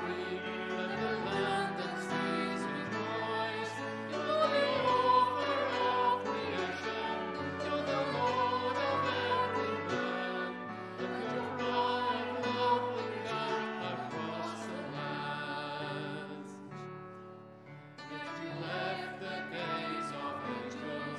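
Church congregation singing a hymn together with instrumental accompaniment, dipping briefly to a quieter passage about two-thirds of the way through before picking up again.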